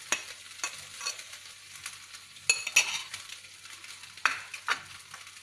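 Frying pan sizzling as cooked rice for nasi goreng is tipped in from a glass bowl, with a series of sharp scrapes and knocks against the pan, the loudest about two and a half and four seconds in.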